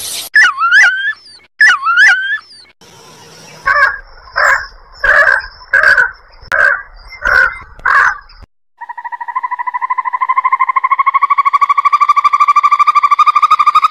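A run of animal calls: two short warbling calls that slide up and down, then about six evenly spaced calls, each with a low thump, then from about nine seconds in a long, steady, rapidly pulsed trill.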